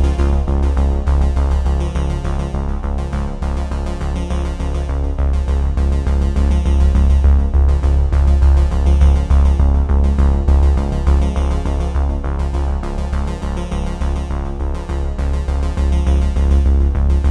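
Background music with synthesizer and heavy bass, continuous and loud.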